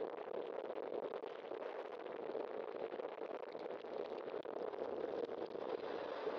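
Steady rush of wind and road noise on a bicycle-mounted camera's microphone while riding.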